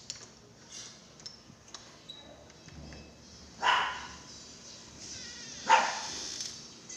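A Belgian Malinois barks twice, about two seconds apart. A doorknob latch clicks just after the start.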